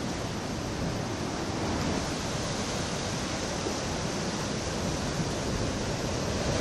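Surf washing against a rock breakwater: a steady, even rush of sea noise.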